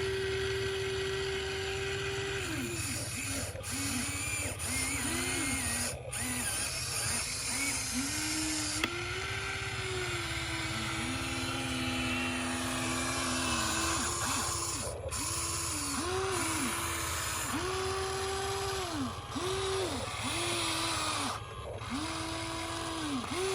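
Excavator's diesel engine and hydraulics working under load, with a steady low rumble and a tone that rises, holds and drops again every second or two as the machine moves.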